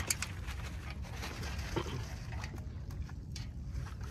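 A sharp knock, then light rustling, small clicks and faint water sounds as a mesh fishing net is handled in shallow water, over a steady low rumble.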